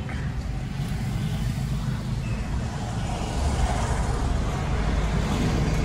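Car driving on a town road, heard from inside the cabin: a steady low rumble of engine and road noise with a light hiss.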